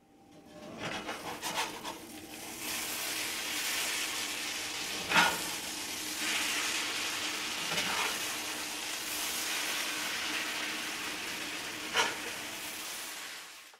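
A steady hiss that swells in over the first few seconds, with three sharp pops about five, eight and twelve seconds in, fading out at the very end.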